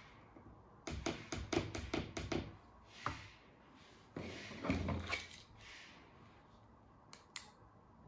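Small tactile learning button on an RF relay receiver board pressed four times, a quick run of sharp little clicks about a second in. Then a plastic key-fob remote is picked up and handled, with a short rustle and a couple of light clicks near the end.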